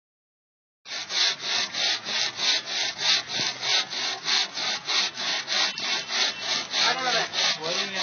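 Two-man crosscut saw pulled back and forth through the trunk of a dried foxtail palm: a rasping stroke about three times a second, starting about a second in.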